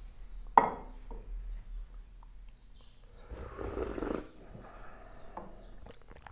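A loud slurp of hot oolong tea sipped from a small cup, lasting about a second, a little past the middle. Near the start, a single sharp clink of porcelain teaware. Small birds chirp faintly throughout.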